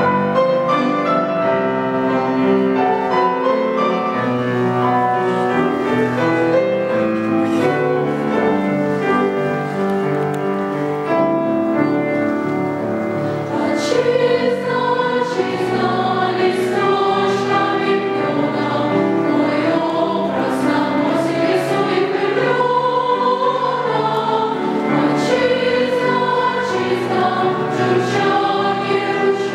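Mixed children's and youth choir singing in parts with grand piano accompaniment, coming in loud all at once and growing fuller and brighter about halfway through.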